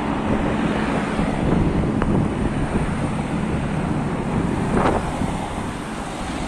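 Race convoy cars passing on the street, their tyre and engine noise mixed with wind buffeting the microphone. A brief sharp sound comes about two seconds in and another near five seconds.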